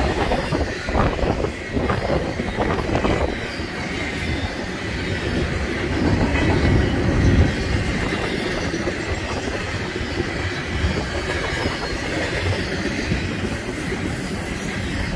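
A BNSF train rolling past on the rails: a steady rumble of wheels on track, with a run of clacks over rail joints in the first few seconds and a faint wheel squeal.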